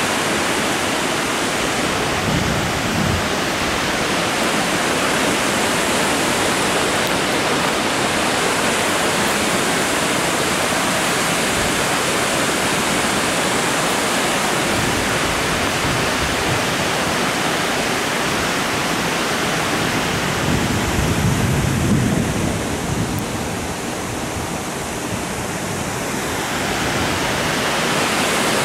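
Waterfall's steady rushing roar, dipping a little in level for a few seconds near the end.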